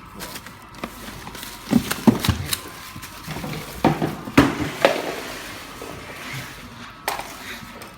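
Irregular knocks, thumps and clatter of a folded electric scooter being handled and set down, several sharp hits in the first five seconds and one more near the end.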